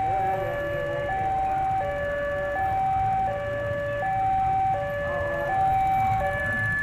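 Electronic level-crossing warning alarm sounding its two-tone signal, a higher and a lower note alternating evenly about every three quarters of a second, warning that a train is approaching the crossing. A low steady rumble sits underneath.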